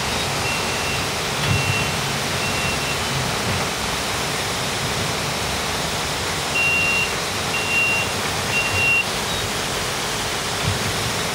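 Tram door-closing warning beeps: a high single-pitched tone in short beeps about once a second, four at the start and three more from about six and a half seconds in, as the doors try to close. A steady rushing background noise runs underneath.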